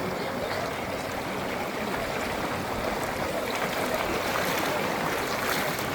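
Steady rushing of seawater and surf at the shore.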